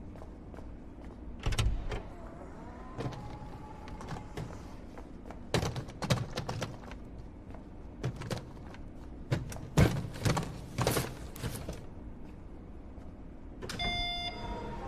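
Knocking on a car window in short clusters of sharp raps. Near the end a power window motor whines briefly.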